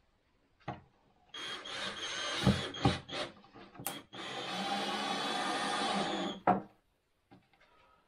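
A power tool working on wood in two runs, the first about a second long and the second about two seconds long, with sharp wooden knocks between and a thump as it stops.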